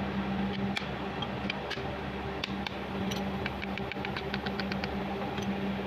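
Light metal-on-metal hammer taps on a brass drift against a small worm gearbox housing, driving a part home during reassembly. The taps come singly at first, then in a quick even run about three to four seconds in, over a steady low hum.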